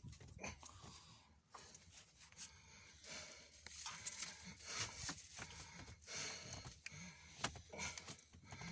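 Scattered rustling with light clicks and knocks, irregular and fairly quiet.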